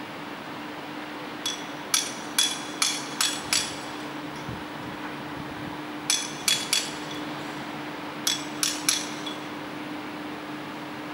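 Hand hammer striking metal with sharp, ringing blows in three bursts: about six quick blows, then three, then four.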